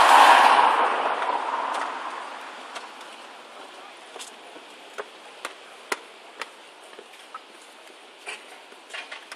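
A taxi car passes close by, its engine and tyre noise swelling and fading away over the first two seconds. Quiet street background follows, with a few short sharp clicks.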